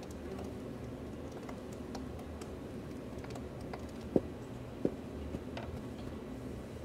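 Scattered light clicks and taps over a steady low rumble, with two sharp knocks a little over half a second apart, past the middle.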